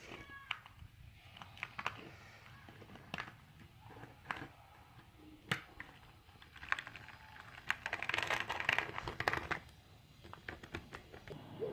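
Scattered light clicks and taps from a plastic scale model being handled, with a denser rattling clatter about eight to nine and a half seconds in.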